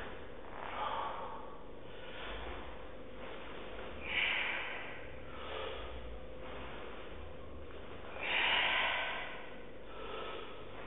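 A man breathing hard while doing heavy barbell preacher curls: short forceful exhalations in time with the reps, the two loudest about four seconds apart. A steady electrical hum sits under it.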